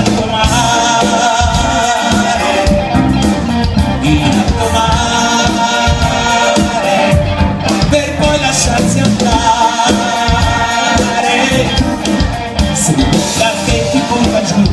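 Live band playing a pop-rock song with a Latin feel, a melody line or voice carrying over drums and bass.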